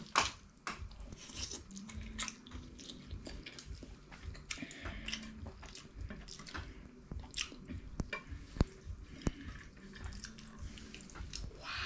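Close-up eating sounds: spaghetti being slurped and chewed with wet mouth noises, with sharp clicks of wooden chopsticks against each other and the plates scattered throughout.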